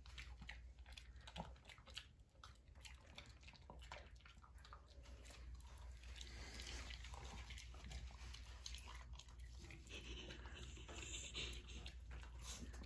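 Small dog (Shih Tzu) chewing and crunching a dog treat: faint, irregular crunches and clicks.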